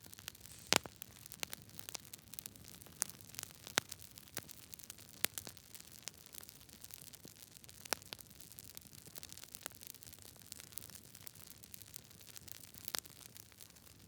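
Fire crackling: irregular sharp pops and snaps over a soft steady hiss, the loudest pop about a second in.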